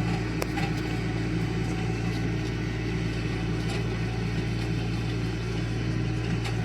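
Tractor engine running steadily with an unbroken low drone, with a few faint clicks over it.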